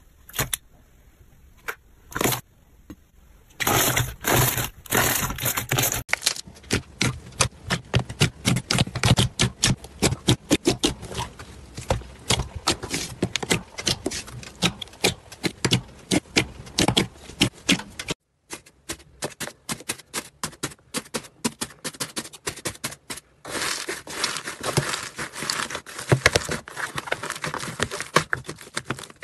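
Crunchy slime being squeezed and poked by hand: dense runs of quick crackles and pops, changing in texture abruptly a few times.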